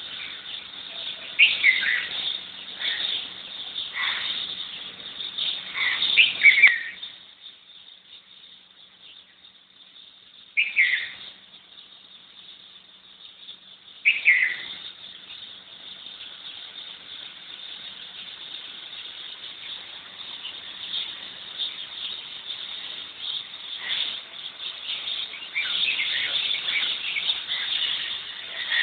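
Garden birds chirping and calling in a morning chorus. Many quick chirps at first, then a few seconds' lull broken by two loud, downward-sliding calls, and the chatter builds again near the end.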